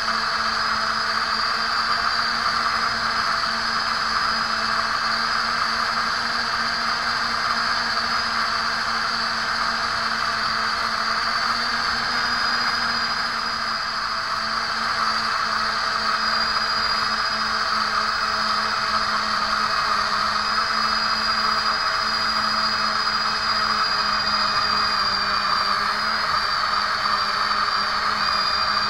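Quadcopter's small brushless motors and propellers whining steadily in flight, recorded by the camera on the frame, with a slight shift in pitch near the end.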